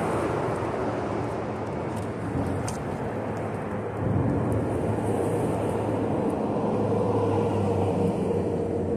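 Vehicle traffic crossing the bridge overhead: a steady rumble with a constant droning hum that carries on for several seconds and begins to fade at the very end.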